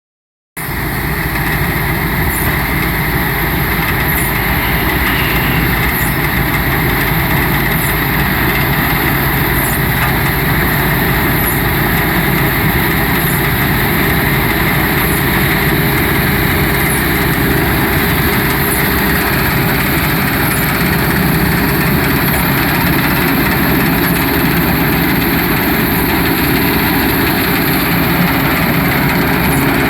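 Panasar G-80 small combine harvester running steadily, its engine and machinery making a continuous loud drone with a faint tick repeating about every second and a bit.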